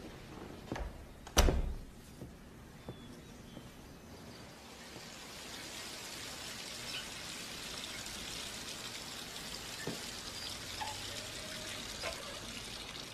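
A door shutting with a sharp thud about a second and a half in, just after a lighter click of the latch. Then a steady hiss with a few light clinks of glassware as drinks are poured and handled.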